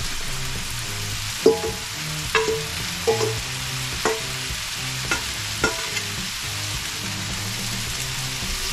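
Stir-fry sizzling on a Blackstone steel flat-top griddle, with about seven sharp clinks and scrapes of a metal spatula on the steel, roughly one a second, that stop in the last few seconds.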